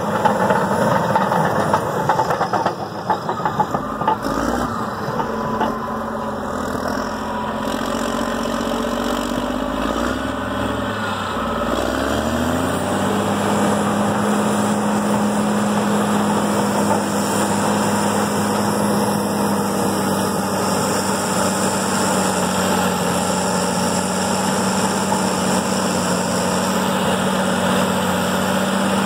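Caterpillar D6R LGP crawler dozer's diesel engine running under load as it drives and pushes dirt with its blade. About twelve seconds in, the engine note climbs and then holds steady.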